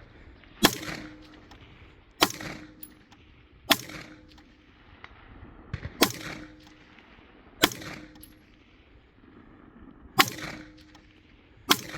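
Seven rifle shots from an AR-15-style rifle fired at long-range steel targets, deliberate and spaced unevenly about one and a half to two and a half seconds apart, each with a short ringing tail.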